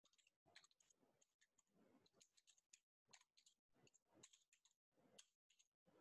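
Near silence with about five faint computer keyboard keystrokes, spaced irregularly.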